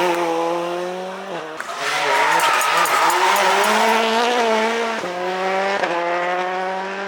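Rally car engine revving hard under acceleration. Its pitch climbs and drops sharply at gear changes about a second and a half in and again around five and six seconds.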